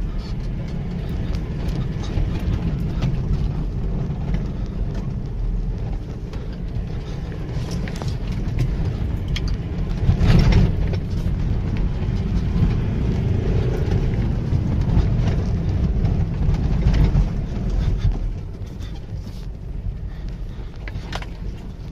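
Ford Endeavour's diesel engine pulling hard over a rough dirt track, heard from inside the cabin, with knocks and rattles from the body as it crosses the ruts. A heavy thump comes about ten seconds in, and the sound eases off near the end.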